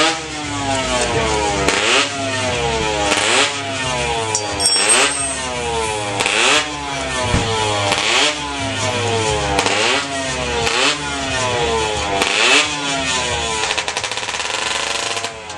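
Montesa 250 two-stroke racing engine revved again and again, its pitch climbing sharply and sinking back about every second and a half, then settling lower near the end.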